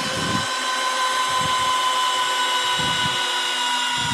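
Two 12 V cordless screwdrivers, a Makita and a Hilti, running together at speed one and driving long TimberLOK timber screws into a log. Their motors give a steady whine that sags slowly in pitch under the load.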